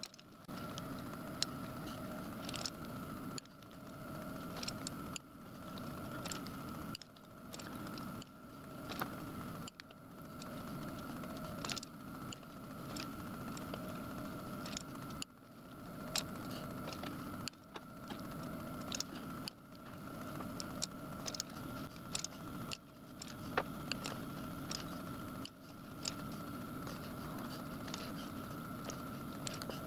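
Steady machine hum with small metallic clicks and scratches as a scriber scores graduation lines into a metal dial set on a dividing head. The hum drops away briefly every second or two, with a sharp click at many of the breaks.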